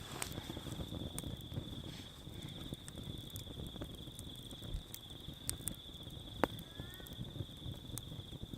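An insect trilling steadily at one high pitch, over a campfire crackling with scattered sharp pops; one louder pop about six and a half seconds in.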